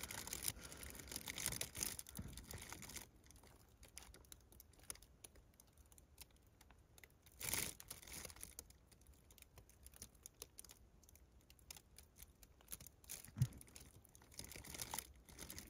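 Faint crinkling and rustling of a plastic tarp and bivy bag as a person shifts inside a cramped shelter, with scattered small ticks and one brief louder swish about halfway through.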